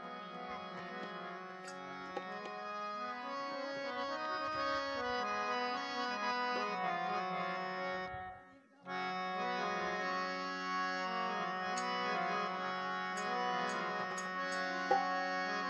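Instrumental interlude of a Rajasthani devotional bhajan, led by a harmonium playing sustained chords and melody. The music drops out for about half a second halfway through, and a few light ticks come in the second half.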